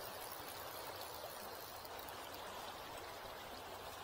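Steady rushing of the Spokane River's current, an even wash of moving water with no distinct events.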